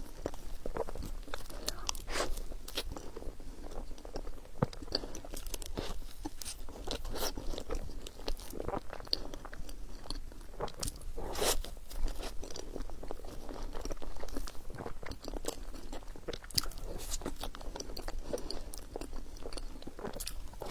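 Close-up eating sounds of a person biting and chewing soft bread: a steady run of irregular wet mouth clicks and smacks.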